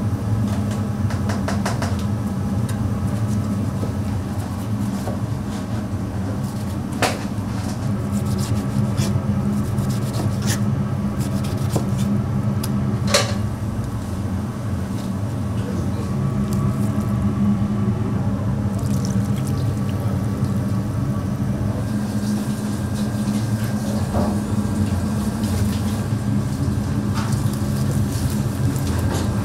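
Restaurant kitchen ambience: a steady low mechanical hum with a hissing wash over it, broken by a few sharp clinks, the clearest about seven and thirteen seconds in.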